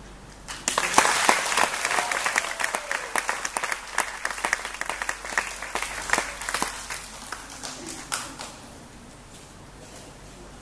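Audience applauding, a dense patter of hand claps that starts about half a second in and dies away after about eight seconds.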